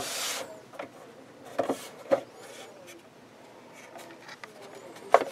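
Plastic top cover of a Commodore 1541-II floppy drive being lifted off its base: a short rubbing sound at the start, then a few light plastic clicks and knocks.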